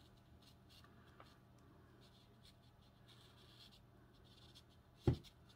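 Faint scratching and soft ticks of fishing line being handled and wound around a hook shank while a carp rig is tied, over a low steady hum, with one short thump about five seconds in.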